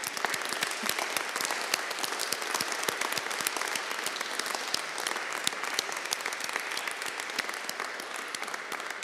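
Congregation applauding: many hands clapping, starting abruptly and easing off slightly toward the end.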